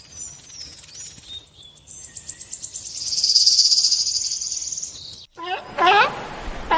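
Animal calls: a high, fast, pulsing trill lasting about three seconds, then, after a brief break, a run of short repeated calls that slide in pitch.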